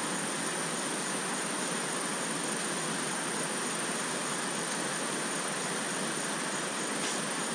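Steady, even rushing noise with no distinct tones or rhythm, starting abruptly and holding at one level.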